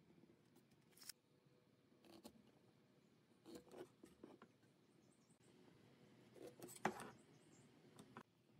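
Faint scratching and light clicks of a ballpoint pen marking lines on a pine board, with a sharper knock about seven seconds in.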